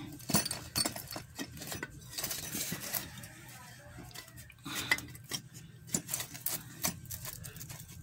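Irregular metallic clicks and light knocks as a washing machine motor's wound stator is pushed and worked into its metal mounting bracket by hand, with a louder knock near the middle.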